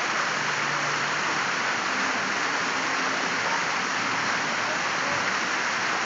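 Fountain water splashing steadily into its pool, an even, unbroken rush of falling water.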